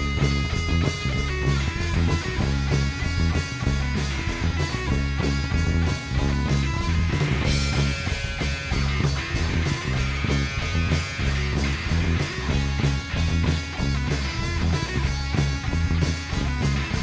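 Rock band playing live: electric guitar, electric bass and drum kit playing together, with a strong bass line and steady drumming.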